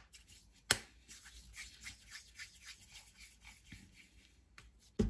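Hands shaping small balls of dough: faint, irregular soft rubbing and ticking sounds, with a sharp tap a little under a second in and another knock near the end.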